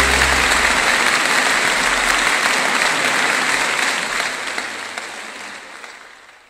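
A large audience applauding, a dense even clatter of many hands that fades out steadily over the last two seconds or so.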